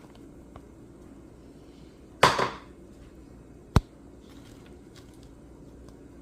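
A utensil stirring shredded carrots and cheese into a blended egg mixture, knocking against the container: one loud clatter a little over two seconds in, a single sharp click about a second and a half later, then a few faint taps.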